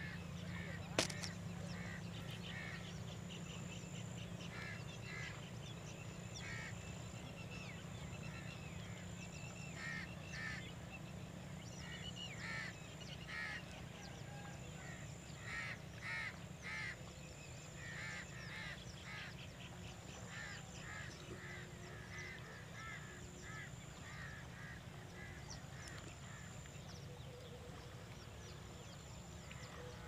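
Waterfowl calling, many short calls repeated through the whole stretch, over a steady low rumble. A single sharp click about a second in.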